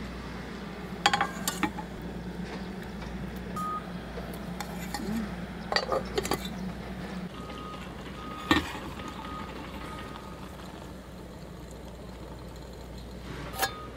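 Metal cookware clinking: an aluminium pan lid and a ladle knocking against a pan and plate in a handful of sharp clinks, the loudest about a second in and just past the middle, over a steady low hum.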